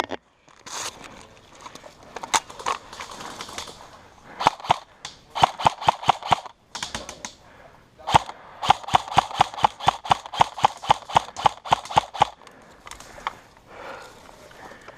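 Airsoft guns firing runs of quick single shots, about four or five a second: a short run, a pause, then a longer run of sharp clicks.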